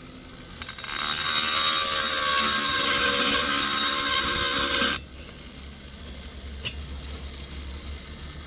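Handheld high-speed rotary grinding tool with a small bit, porting a Husqvarna 266SE chainsaw cylinder's lower transfer ports: a loud, steady high whine that spins up about a second in and cuts off suddenly after about four seconds. A single faint click follows.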